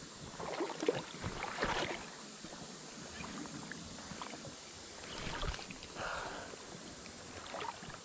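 Light water noise with a few soft swishes and knocks, clustered in the first two seconds, as a spinning rod is cast from a kayak.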